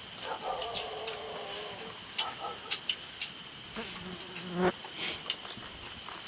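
Insects droning steadily in a high, even tone, with scattered sharp clicks and a couple of short pitched buzzes.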